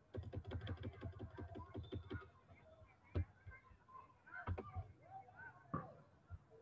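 Computer keyboard and mouse clicks: a quick run of about ten clicks in the first two seconds, then a few single clicks spaced about a second apart.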